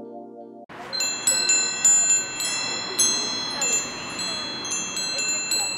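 Music cuts off under a second in. Then wind chimes tinkle, many high metallic tones struck over and over at uneven moments, over a steady hiss.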